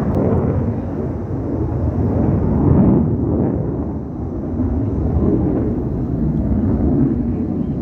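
Low-flying military jet passing over, its engine noise a loud rumble that swells to a peak about three seconds in and stays strong. The watcher takes it for an F-35 Lightning.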